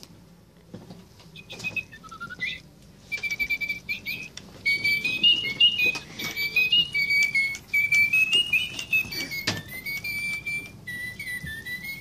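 Electronic toy parakeet chirping and tweeting: a quick run of high whistled chirps and trills that starts about a second and a half in, gets louder from about five seconds in and ends in a lower, sliding warble. A few handling knocks, one sharper about nine and a half seconds in.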